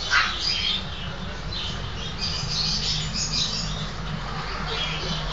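A puppy gives a short high yap at the start, followed by scattered high squeaky chirps and yips, over a low steady hum.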